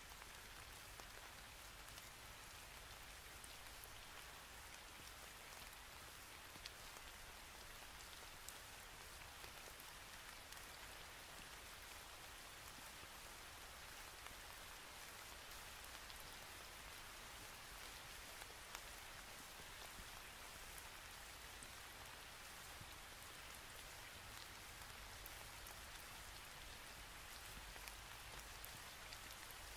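Near silence: a faint steady hiss with a few scattered tiny clicks.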